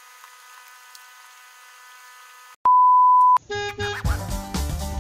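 A faint steady hum, cut off a little over two seconds in by a loud, steady, high electronic beep lasting under a second. A quick run of short electronic tones follows, then upbeat background music with a beat starts about four seconds in.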